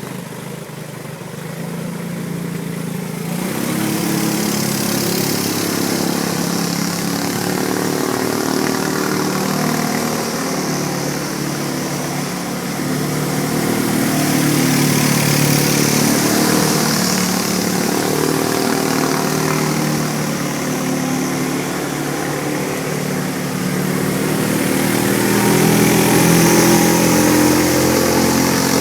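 A three-wheeler's engine running as the boat circles on the water, its pitch rising and falling with the throttle. A hiss joins it about three seconds in.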